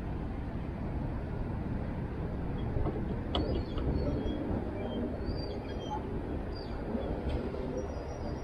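Steady low rumble of wind and outdoor background noise on the microphone, with faint distant voices in the middle and a single click about three seconds in.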